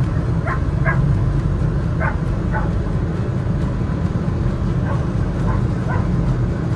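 Steady low rumble of a lake ferry under way, its engine and wind, with a dog giving short high yips about seven times.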